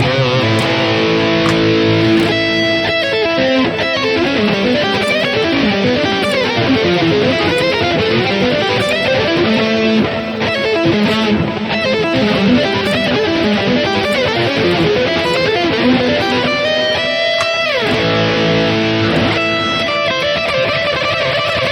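Electric guitar played through a Boss GT-1000 modeling unit with its dual delay engaged, the notes followed by strong repeating echoes. A little past three-quarters of the way through, a note slides down in pitch.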